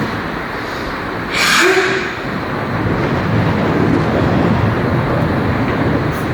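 Heavy thunderstorm rain pouring with a steady loud hiss and low rumble, with one brief louder burst about a second and a half in.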